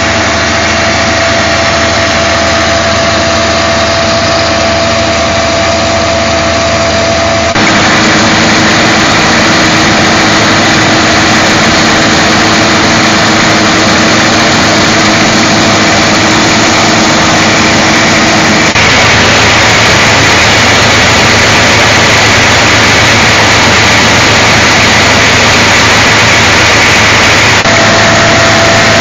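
Engine of a truck-mounted coffee-cleaning machine running steadily, driving the machine, with a loud constant mechanical din. It turns louder and brighter about seven and a half seconds in.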